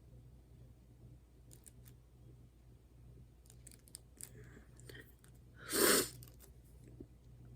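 Quiet crafting handling noise: scattered light clicks and taps, with one short, loud rasp about six seconds in.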